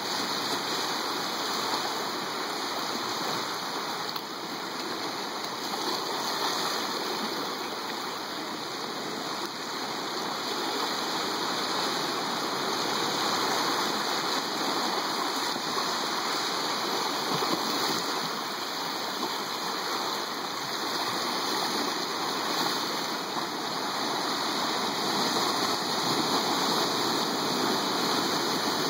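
Ocean surf washing ashore: a steady rushing hiss that swells and eases gently.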